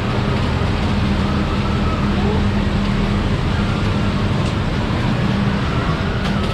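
River rafting ride running: a loud, steady rushing rumble with a low hum underneath.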